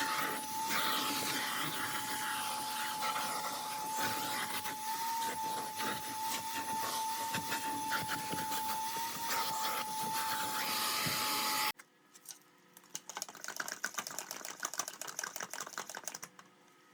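Vacuum cleaner motor running with a steady whine over a rushing noise, switched off suddenly about twelve seconds in; faint clicking and handling noises follow.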